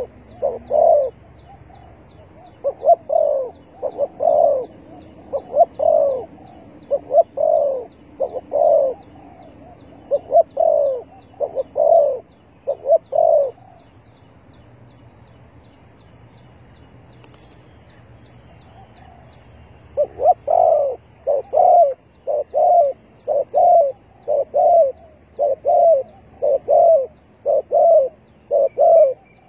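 Spotted dove cooing in repeated short phrases of two or three notes. The cooing stops about 14 seconds in and starts again about 20 seconds in. A faint, rapid high ticking runs underneath until the pause ends.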